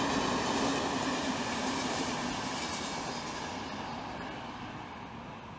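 Passenger train running past close by, loud at first and fading steadily as it moves away.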